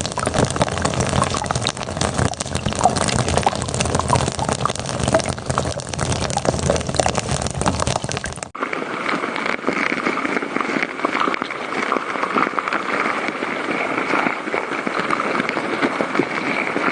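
Tiny nature sounds picked up by special close-up microphones: a dense crackling hiss that cuts suddenly, about halfway through, to a finer crackling over a steady high hum.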